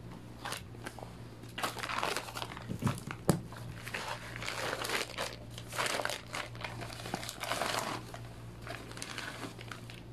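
Plastic delivery bag crinkling and rustling as it is cut open with scissors and shrink-wrapped bamboo cutting boards are pulled out of it, with irregular crackles and a couple of sharper clicks about three seconds in.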